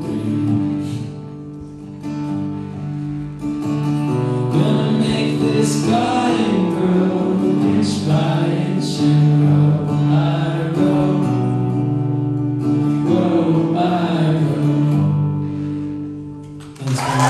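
Live solo male voice singing with a strummed acoustic guitar in a large room. Near the end the song winds down and clapping and cheering break out.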